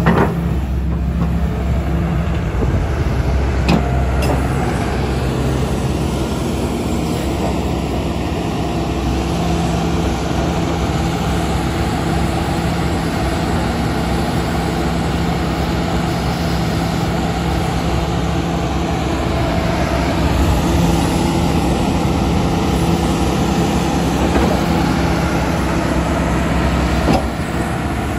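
Hitachi ZX290LC-5B excavator's Isuzu diesel engine running steadily, with a single click about four seconds in.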